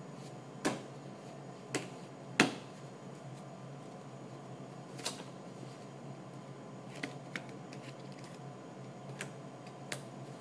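A deck of playing cards being handled, spread and laid on the table: about eight sharp clicks and snaps at irregular intervals, the loudest about two and a half seconds in, over a low steady hum.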